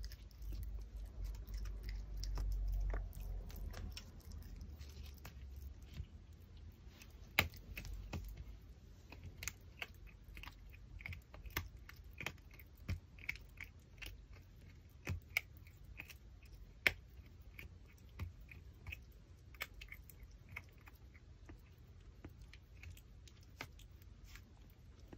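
Pomeranian gnawing a raw pork backbone: irregular sharp clicks and cracks of teeth on bone, a few much louder than the rest, with a low rumble in the first few seconds.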